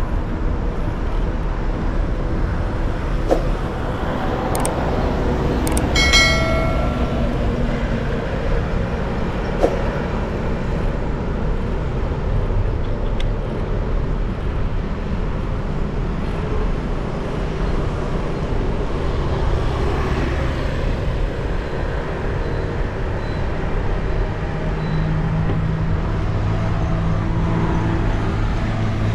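Downtown street traffic heard from a moving motorcycle: a steady rush of engines and road noise. A brief high-pitched horn sounds about six seconds in, and a nearby engine hums steadily near the end.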